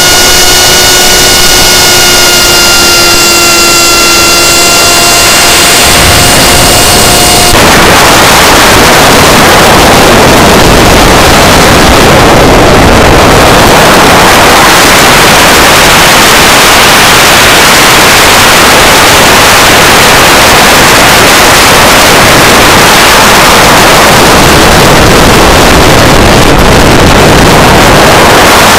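S800 hexacopter's motors and propellers whining as a stack of steady tones for about the first seven seconds, then a loud, even rush of wind noise on the onboard microphone for the rest.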